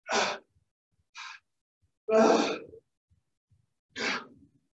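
A man breathing forcefully in time with double kettlebell swings: three loud, sharp exhales about two seconds apart, with a short, fainter breath between the first two.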